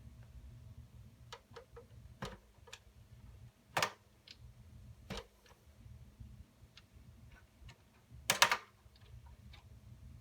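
Scattered plastic and metal clicks and knocks from handling the parts of an HP Compaq 8000 Elite desktop computer's case, under a faint steady hum. The loudest are a sharp click about four seconds in and a brief clatter near the end.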